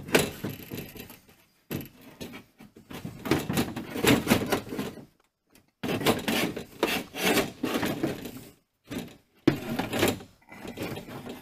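Steel window regulator and motor assembly being worked out of a truck door: irregular metal clanking, rattling and scraping against the door's sheet-metal shell, in several spells with short pauses between them.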